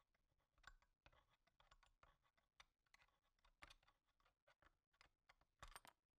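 Near silence with faint, irregular clicks and rustles from a D-sub-25 connector and its wires being handled and fitted into the cutout of a metal enclosure, a few sharper clicks coming together near the end.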